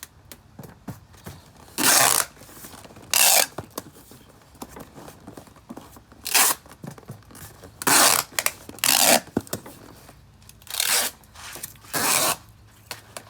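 Packing tape being pulled off the roll in about seven loud ripping pulls, each around half a second long, with rustling of the cardboard box in between as the box is taped tight for shipping.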